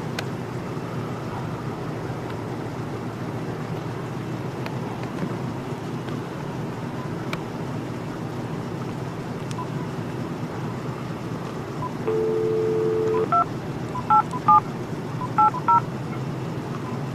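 A steady low background hum, then about twelve seconds in a telephone dial tone sounds for about a second, followed by several short touch-tone keypad beeps as a phone number is dialed.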